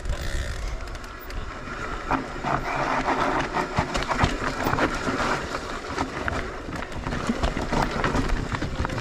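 Mondraker Crafty Carbon R e-mountain bike riding down a dirt trail: tyres rolling over dirt and rocks, with the bike rattling and clattering over bumps. Wind rumbles on the microphone throughout.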